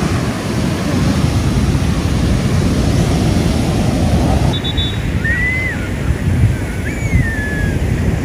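Ocean surf breaking on the beach, with wind buffeting the microphone. Later on, two short high calls that rise and fall.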